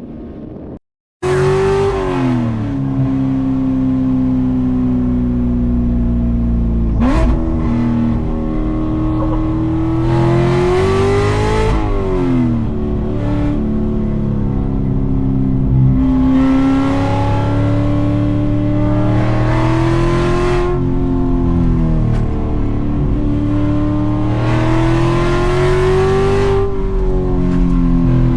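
Cammed C7 Corvette's 6.2-litre LT1 V8 with a stage 4 cam, driven hard through its 7-speed manual gearbox. The engine note keeps climbing in pitch under throttle, then falls back at the shifts and lifts, over and over. It starts abruptly about a second in, after a short gap.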